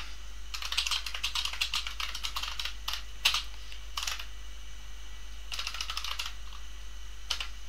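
Computer keyboard being typed on: a quick run of keystrokes, a few single key presses, a pause of about a second and a half, then another short run and a last key press near the end.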